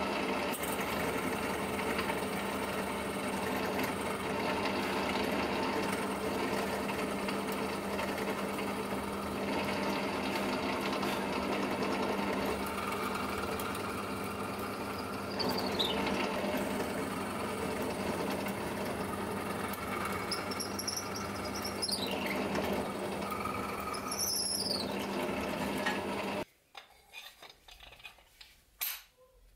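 Electric drill running steadily as a twist bit bores the tang hole into a laminated wooden knife-handle block, with several brief high squeals from the bit in the second half. The drill stops about 26 seconds in, leaving a few light clicks near the end.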